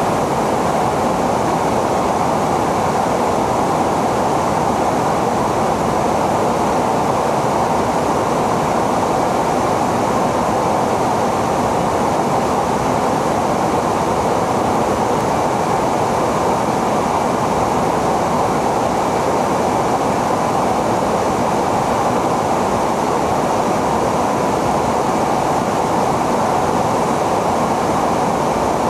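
Steady cabin noise inside a tanker aircraft in flight: an even rush of engines and airflow with a faint steady high whine.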